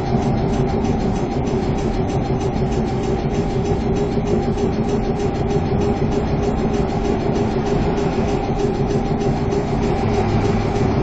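Steady hum of a stationary Fukui Railway tram heard from inside the car, with several steady tones from its onboard equipment over a low rumble. A passing truck adds a low engine rumble near the end.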